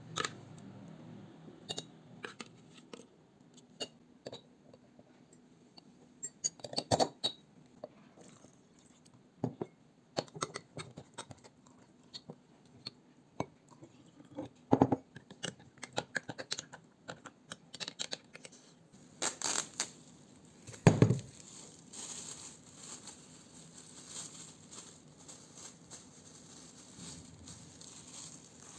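Kitchen handling sounds from hot-sauce preparation: scattered clicks, clinks and knocks of utensils and containers, then a steady rustling, crinkling stretch starting about two-thirds of the way through, with one heavy knock just after it starts.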